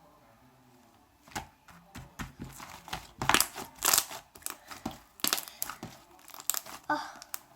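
Shaving-foam slime being kneaded and stretched by hand, giving irregular crackling, popping and tearing sounds that start about a second in.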